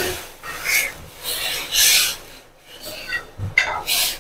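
Steel ladle scraping against the metal kadhai in repeated strokes as the rava and vegetables are stirred into the water just poured in.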